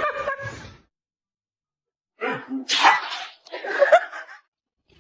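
Laughter trailing off, then after a short silence two quick sneezes about a second apart.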